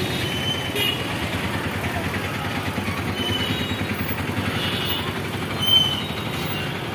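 Busy street and crowd noise: a steady din of motor traffic and people, with a few short high-pitched tones.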